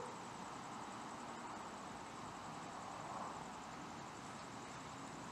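Quiet outdoor background: a faint steady hiss with a thin, high, evenly pulsing insect trill, like distant crickets.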